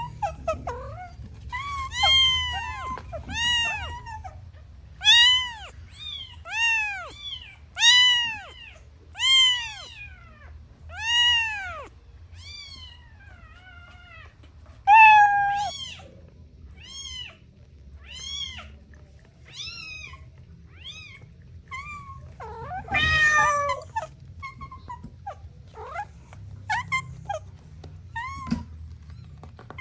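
Kitten meowing over and over: high-pitched calls that rise and fall in pitch, about one a second at first, then softer and more scattered, with one louder, harsher call about three quarters of the way through.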